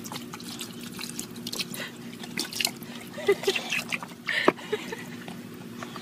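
Water splashing, trickling and dripping in a child's plastic water table, stirred by a baby's hands and a boxer dog lapping from it, in many small irregular splashes over a steady low hum.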